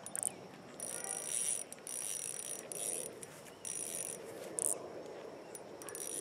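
Fishing reel being cranked in several short bursts of about a second each, with a whirring, clicking sound and brief pauses between.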